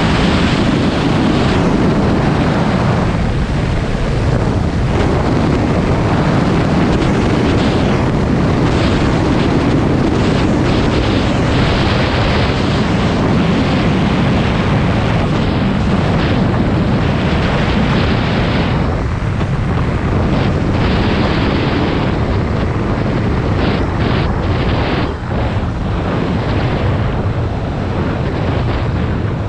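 Wind rushing over the microphone on a moving Suzuki DR650 RSE motorcycle, with its single-cylinder four-stroke engine running steadily at road speed underneath. The sound dips briefly near the end.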